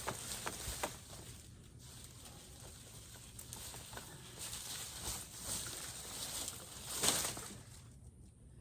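Dry corn stalks and leaves rustling and crackling as they are handled and pulled out, with a louder rustle about seven seconds in.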